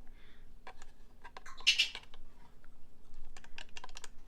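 Scattered light clicks and taps of small plastic toy pieces being handled, with a brief louder scratchy rustle about halfway through.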